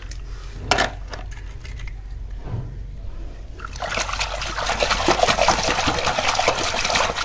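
Water splashing and sloshing in a basin as a hand swishes a small plastic toy truck vigorously through it. The splashing starts about four seconds in; before that, only a low hum and a few light knocks.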